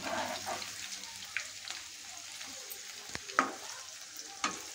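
Paneer pieces frying in hot mustard oil, a steady sizzle, with a few sharp taps and scrapes of the spatula against the pan as the pieces are turned to brown them.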